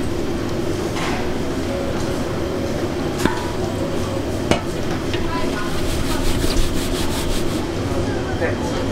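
Marinated pork being dredged by a gloved hand in a stainless-steel bowl of flour: two sharp knocks in the middle, then a rustling scrape of flour against the metal bowl. A steady low hum and faint voices run underneath.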